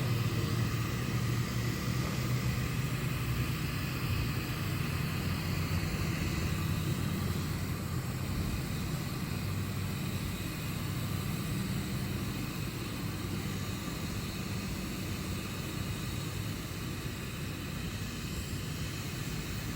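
Steady mechanical rumble: a low hum under an even hiss, easing off slightly toward the end.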